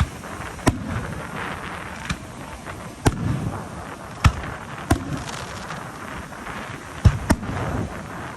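Fireworks going off in an aerial show: about seven sharp bangs at irregular intervals, two in quick succession near the end.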